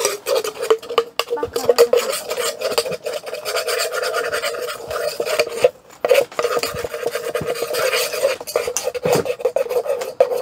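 Spoon stirring and scraping around a bowl of tonkatsu batter mix: a continuous rasping, dipping briefly about six and eight and a half seconds in.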